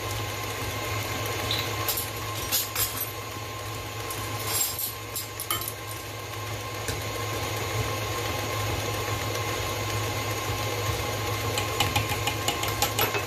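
KitchenAid tilt-head stand mixer running steadily, its motor humming as the beater mixes a butter, sugar and egg cake batter. A few light metallic clinks come about two seconds in, again around five seconds, and near the end.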